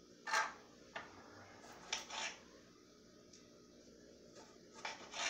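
A few brief knocks and scrapes, three in the first couple of seconds and two more near the end, from a lime garnish being picked up and cut on a bar-top cutting board.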